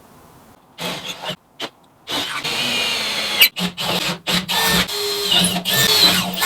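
Power drill running in short stop-start bursts, then more steadily with brief pauses from about two seconds in.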